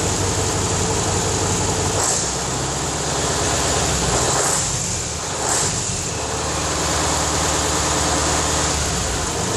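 A 1980 Scania 141's V8 diesel runs steadily at low speed with small changes in engine speed, just brought back to life after a year and a half laid up.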